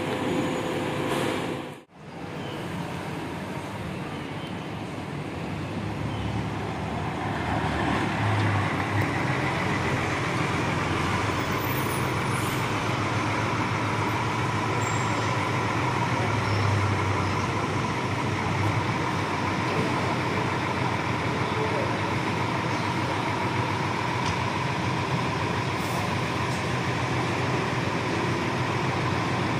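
A bus's diesel engine idling close by: a steady low drone with a faint whine above it, growing louder about six seconds in. The sound cuts out briefly near two seconds in.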